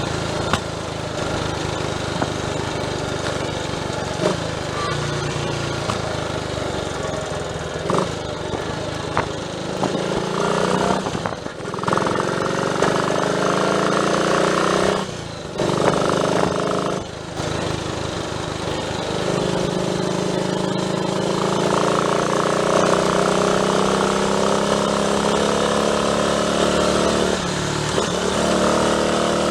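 Triumph Tiger Cub's single-cylinder four-stroke engine running under way, its note climbing repeatedly as it pulls. It is broken by three short breaks near the middle, where the throttle is closed as if for gear changes.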